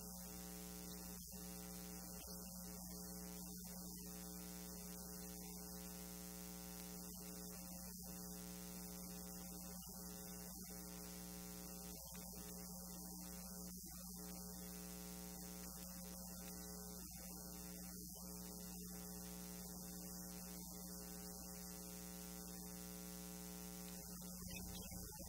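Steady electrical mains hum with a faint hiss, and nothing else.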